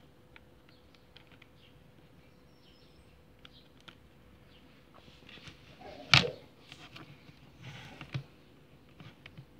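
Scattered light clicks and handling knocks, with one louder sharp knock about six seconds in, over a faint steady hum.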